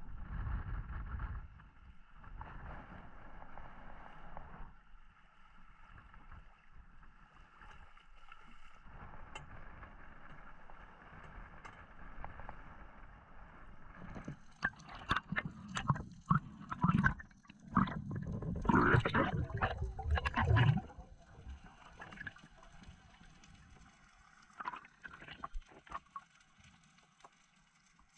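Sea water sloshing and splashing at the surface, then a run of loud splashes and knocks about halfway through as a spearfisherman goes over the side of a boat into the water.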